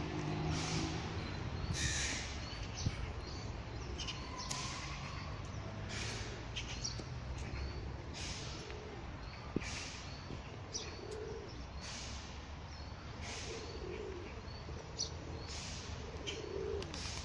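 Footsteps on an asphalt path, roughly one a second, with small birds chirping and pigeons cooing near the end.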